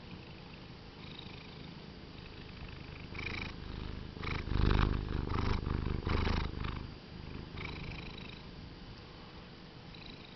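Domestic cat purring steadily and strongly, louder and rougher for a few seconds in the middle before settling back to an even purr.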